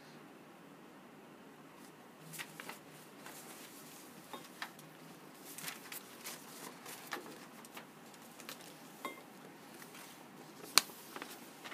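Sheets of paper rustling as they are handled, with scattered light clicks and taps of calligraphy tools being moved on a tray. One sharp click near the end is the loudest sound.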